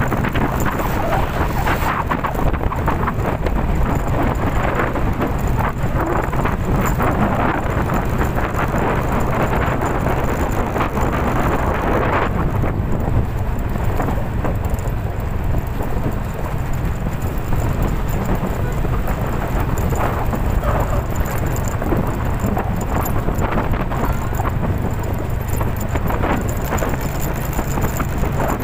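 Strong typhoon wind gusting and buffeting the microphone, a continuous loud rush with a deep rumble underneath. The gusts ease a little about twelve seconds in.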